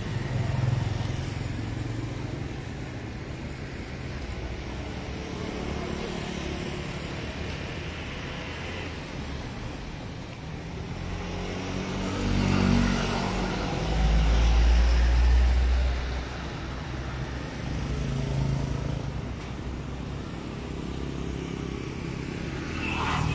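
Street traffic: motor vehicles running and passing, with one vehicle louder and closer for a few seconds past the middle.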